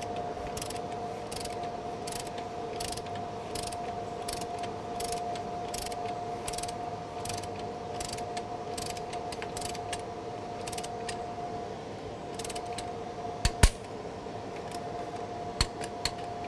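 Hand ratchet clicking in steady strokes, about two or three clicks a second, during work on a Jeep JK's steering linkage. A few sharp metal knocks come near the end.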